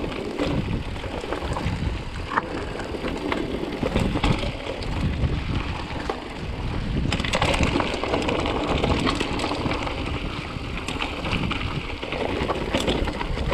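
Mountain bike riding downhill on a dirt singletrack: tyres on dry dirt, the bike rattling over bumps with scattered clicks, under a steady rumble of wind and vibration on the microphone. The hiss of the tyres gets brighter about seven seconds in.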